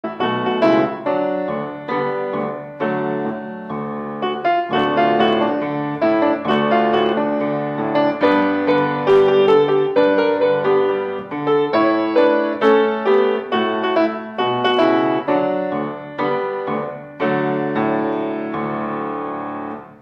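Piano music, a flowing melody over chords; the last chord rings out and fades away near the end.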